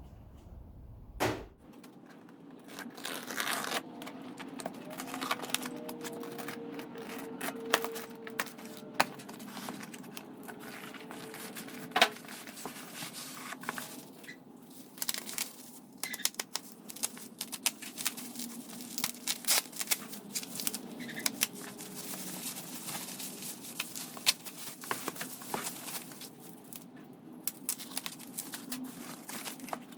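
Packing materials being torn and unwrapped from a shipping box: tape and paper tearing, wrapping crinkling, with many small irregular crackles and knocks.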